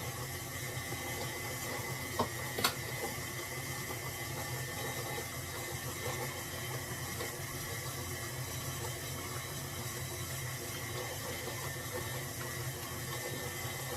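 Steady hiss with a faint hum, with two short knocks a little over two seconds in.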